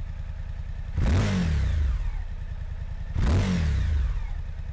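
Motorcycle engine idling with two sharp throttle blips about two seconds apart, each revving up and dying back to idle.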